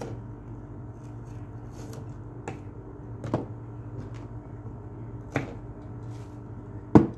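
A metal spoon stirring a shredded potato mixture in a frying pan, knocking against the pan with a few sharp clicks, the loudest near the end, over a steady low hum.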